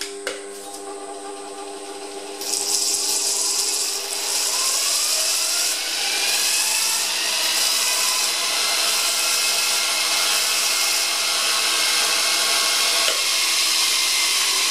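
An electric grinder runs, its motor tone rising as it comes up to speed, and from about two and a half seconds in a steel punch is held to the wheel: a steady grinding hiss as its tip is sharpened.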